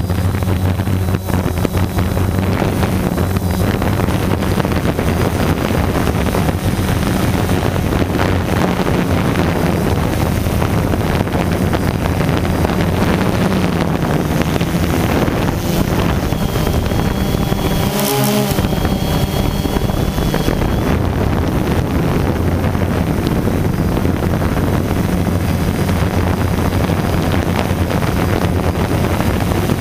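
Quadcopter drone's electric motors and propellers humming steadily in flight, heard from a camera on board, with wind rushing over the microphone. The hum briefly stutters a little past halfway.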